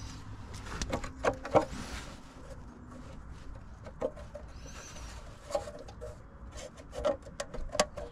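Scattered clicks, knocks and rubbing of hands and tools working around a car engine's lower timing belt cover, with no steady rhythm.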